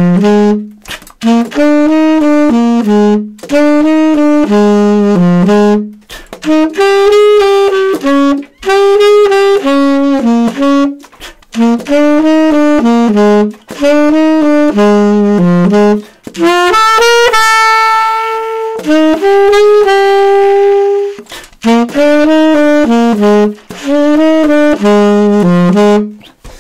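Unaccompanied saxophone playing a blues exercise: short phrases of quick eighth notes broken by brief rests, with two longer held notes past the middle.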